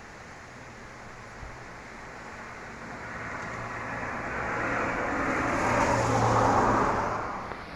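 A vehicle driving past, growing louder to a peak about six seconds in and then fading, over a steady background hiss.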